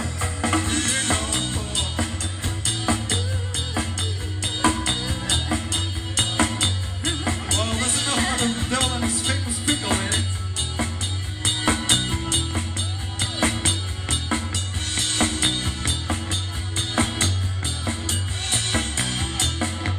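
Live rock band playing: a drum kit keeps a steady beat under electric guitar, keyboards and a strong bass line.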